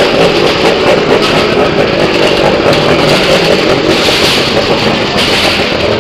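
Loud, steady vehicle engine noise inside a wooden well-of-death drum.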